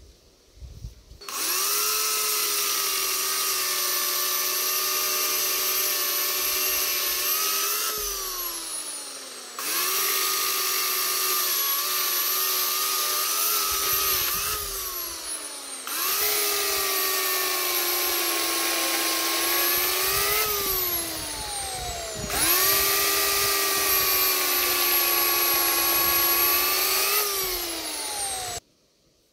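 Corded electric chainsaw cutting through logs: four runs of several seconds each, a steady motor whine that falls away each time the trigger is released and the chain winds down.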